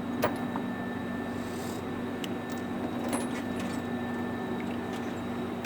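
A few light metallic clicks and rattles of tools and a toolbox drawer being handled, over a steady hum.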